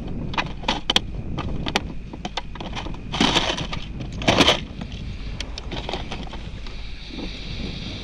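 Knocks and clicks of handled gear on a kayak over steady wind on the microphone, with two louder scraping bursts about three and four seconds in.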